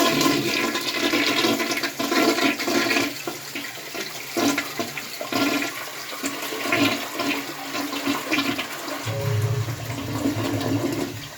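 A 1994 Gerber Stanton toilet bowl flushing from a Crane Pneumo low tank: a rush of water, loudest at first and then easing, with a lower rumbling note in the last couple of seconds before it drops away sharply. It is a really nice flush.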